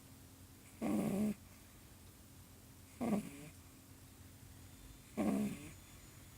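Pug puppy snoring in its sleep: three short, pitched snores about two seconds apart, the middle one briefer.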